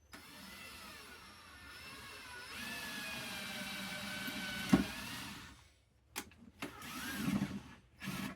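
Power drill driving a self-tapping screw into metal: a steady motor whine for about five seconds, with one sharp knock just before it stops, then a shorter burst near the end.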